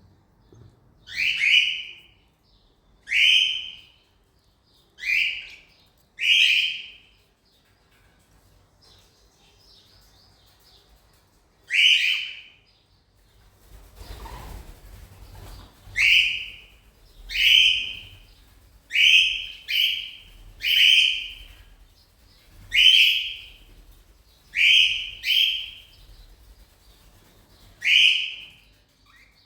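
Cockatiel giving short, repeated whistled calls, each rising then dropping in pitch, about fourteen in all, with a pause of several seconds a quarter of the way in.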